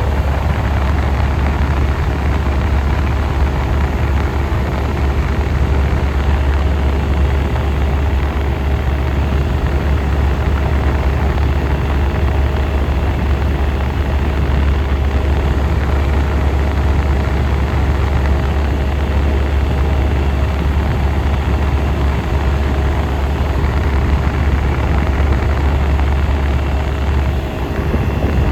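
1967 Chrysler Airtemp Imperial air conditioner running steadily, with a strong low hum and a few steady tones above it. The low hum dips briefly near the end.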